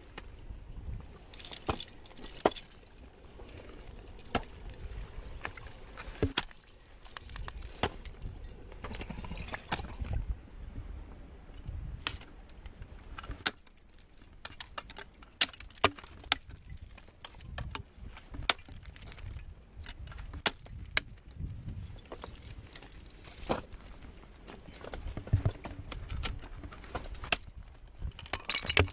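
Ice axes swung into a frozen waterfall, sharp irregular impacts about once or twice a second, some much louder than others, with metal climbing gear clinking between strikes and a low rumble underneath.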